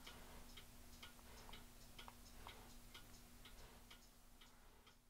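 Faint, evenly spaced ticking, about two or three ticks a second, over a thin steady low hum.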